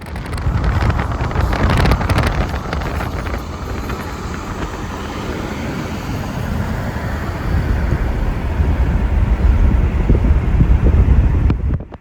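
A car on the move with heavy wind rumble and buffeting on the microphone, growing louder in the last few seconds.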